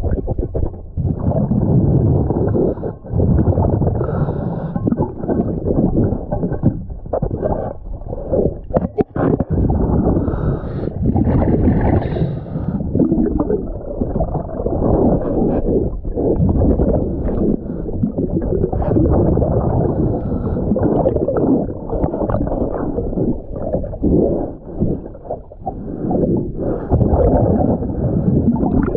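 Underwater noise from a diver's breathing gear: bubbles gurgling and rushing almost without a break, with short dips now and then.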